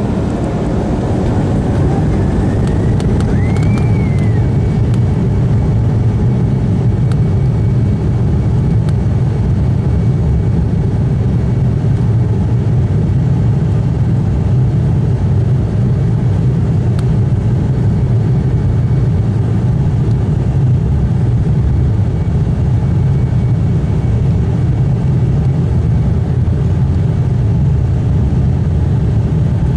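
The two GE CF34 turbofans of an Embraer E190 spooling up to takeoff thrust, heard inside the cabin. A whine rises over the first few seconds and then falls back, under a steady loud rumble of engine and runway noise through the takeoff roll.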